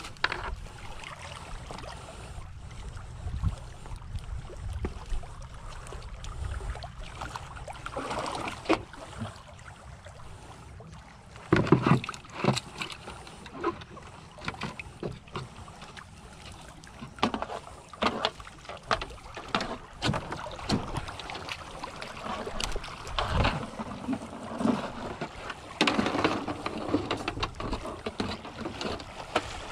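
Irregular knocks and handling noises of a plastic bucket and fishing line in a wooden outrigger canoe, over a steady background of water.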